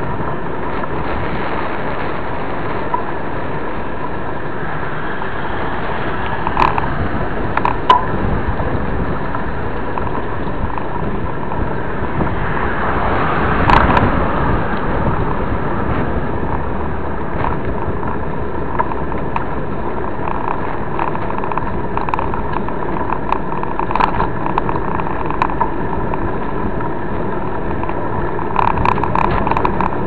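Steady wind and rolling road noise from a mountain bike being ridden along, picked up by a camera mounted on the bike. A few sharp knocks and rattles come through, the loudest about eight seconds in.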